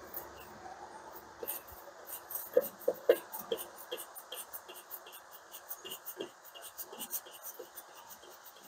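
Light, irregular scraping strokes of sandpaper drawn back and forth between the ignition breaker points of a 1954 Ford F100's distributor, with a few sharper scrapes and clicks about two and a half to three seconds in. The points are being cleaned because the ignition is giving no spark.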